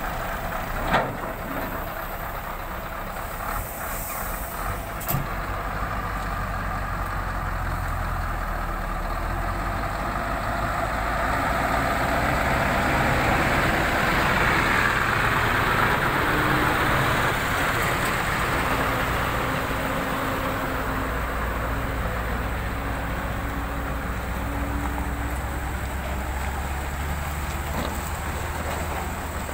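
Scania 164G V8 truck running as it pulls away under load and drives past, its engine note swelling to its loudest about halfway through as the cab goes by, then easing as the loaded trailer follows. A few short sharp sounds come in the first five seconds.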